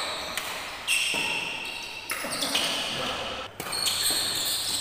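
Badminton doubles rally: rackets striking the shuttlecock several times, each hit sharp and followed by high ringing, with players' shoes scuffing on the court floor, echoing in a large sports hall.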